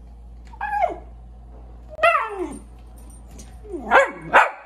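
A young dog barking in four short calls, each sliding down in pitch, the last two close together near the end: begging for food.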